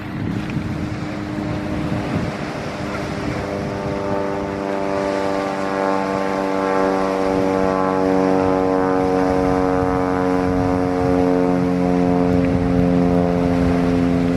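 An engine drone with many even overtones. It grows louder from about three seconds in while its pitch slowly sinks, over a steady rushing background.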